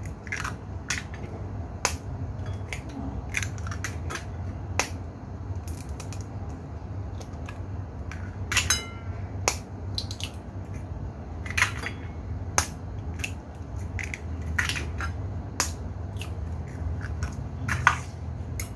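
Raw eggs being cracked one after another into a ceramic bowl: a string of sharp cracks and snaps as shells are broken and pulled apart, one with a short ringing clink of the bowl about halfway through, over a steady low hum.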